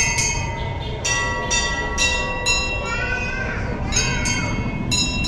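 Brass temple bell struck repeatedly, about two strikes a second, each strike ringing on, over the murmur of a crowd. A wavering, gliding sound rises and falls in the middle.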